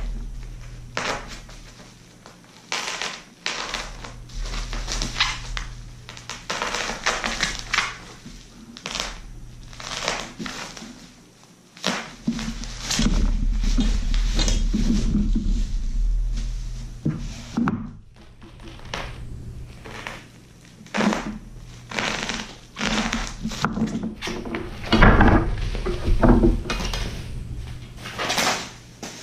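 Packaging being cut open and torn away by hand: irregular crinkling and rustling of wrapping, scrapes, knocks and thuds as the contents are pulled free.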